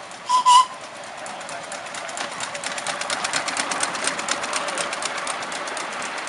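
Miniature steam locomotive giving two short toots on its whistle, then running past with a rapid, even clicking that grows louder as it draws near.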